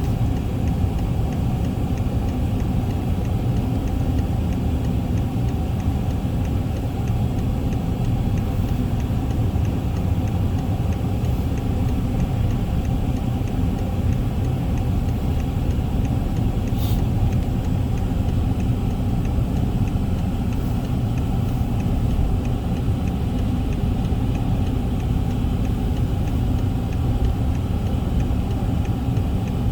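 A steady, low engine-and-road rumble like a car running, with very faint regular ticking and one brief click about 17 seconds in.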